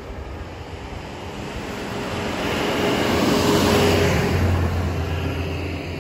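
A road vehicle passes close by: engine hum and tyre noise swell to a peak about halfway through, then fade away.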